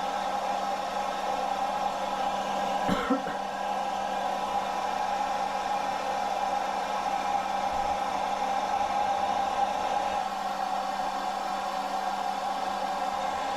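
Steady whir of a small electric motor with a constant hum. A brief, short sound cuts in about three seconds in.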